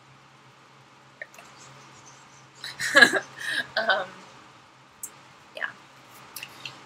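A woman's short wordless vocal and mouth sounds, a little under three seconds in and lasting about a second, over a faint steady low hum.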